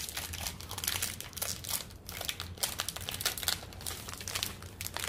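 Plastic biscuit packet crinkling and rustling in the hands as it is opened: a dense, irregular run of crackles.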